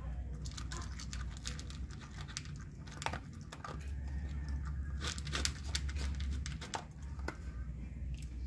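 A dog eating dry kibble mixed with a cooked fish tail, with an irregular run of crisp crunches and clicks as it chews. A low steady rumble runs underneath.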